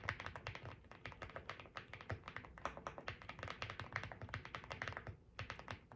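Fast typing on a mechanical keyboard, a quick run of key clicks that breaks off about five seconds in, with a short last burst just before it stops.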